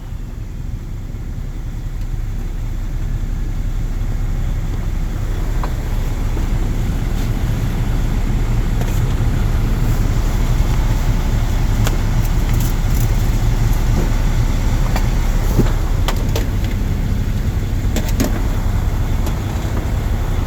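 Mercedes OM460LA inline-six turbo diesel engine running steadily with a deep low hum, slowly getting a little louder over the first several seconds. A few faint ticks are heard in the second half.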